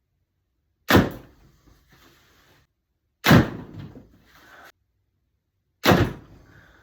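Three arrow shots at close range, each a sudden loud crack of the bow's release and the arrow punching through the tuning paper into the target, fading quickly. They come about two and a half seconds apart.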